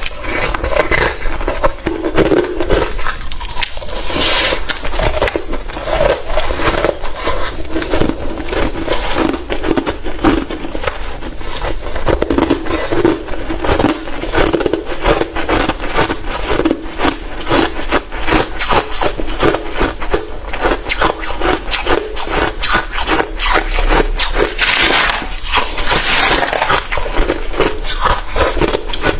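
Close-up crunching of hard refrozen crushed ice being chewed, a dense run of sharp cracks and crunches with no pause.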